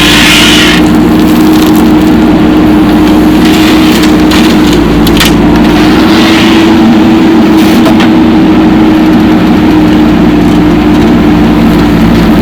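Diesel machinery engine running at a steady, constant pitch, with brief hissy surges a few times.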